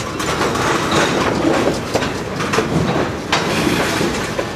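Railroad tank cars rolling past close by: a steady rumble from the steel wheels on the rails, with several sharp clicks and clacks as the wheels cross rail joints.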